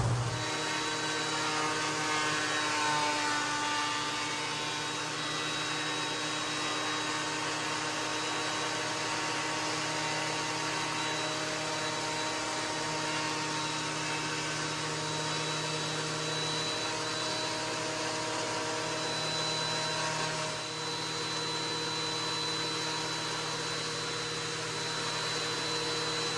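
Ridgid 13-inch benchtop thickness planer running steadily, its motor giving a continuous whine of several held tones, with a brief dip in level about three quarters of the way through.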